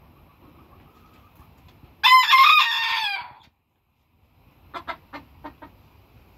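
Booted bantam rooster crowing once, a loud crow about a second long, followed a second or so later by a quick run of about five short clucks.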